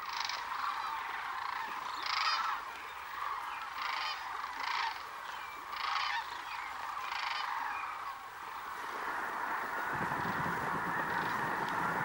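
A large flock of sandhill cranes calling: a dense chorus of rolling calls, with louder nearby calls standing out every second or so. Near the end the chorus becomes steadier and a low rushing noise joins it as birds take off.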